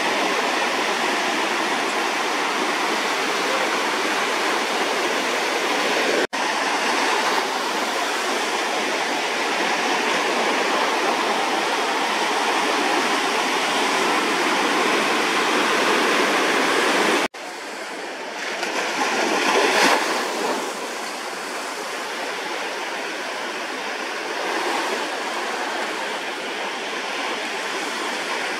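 Ocean surf: small waves breaking and whitewater rushing in a steady wash. It breaks off twice for an instant, about six and seventeen seconds in. After the second break it is a little quieter, with a brief swell soon after.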